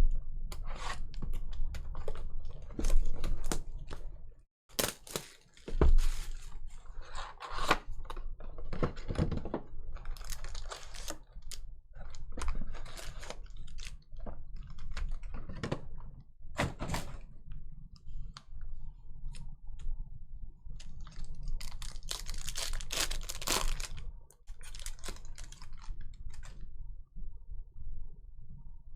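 Hands opening a sealed box of trading cards and its packs: clicking and tapping of cardboard, rustling, and a longer stretch of crinkly tearing of pack wrapping about three quarters of the way through.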